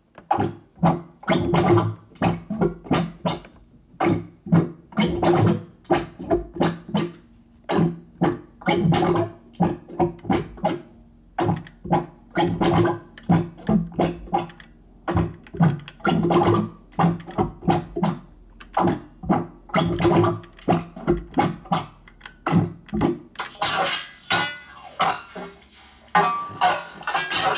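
Elektron Monomachine SFX60+ synthesizer playing a sequenced pattern of short, rhythmic synth notes at 130 BPM, with a strong low pitched tone. About 23 seconds in, the sound changes to a brighter, noisier texture.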